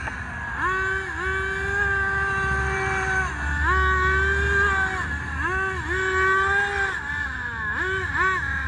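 Remote-control car's motor whining, its pitch rising and holding with each burst of throttle and dropping back off it, with a run of quick short blips near the end.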